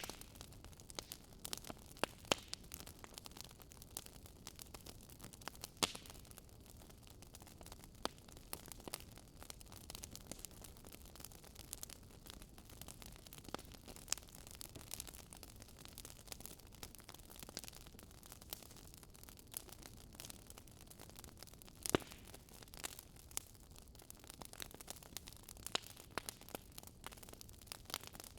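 Log fire crackling: irregular snaps and pops over a faint steady hiss, with one louder pop about three-quarters of the way through.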